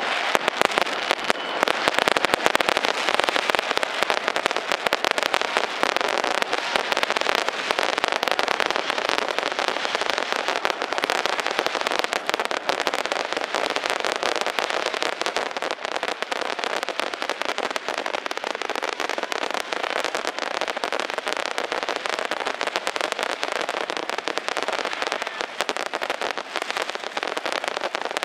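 Firecrackers and fireworks going off in a dense, continuous crackle of rapid bangs.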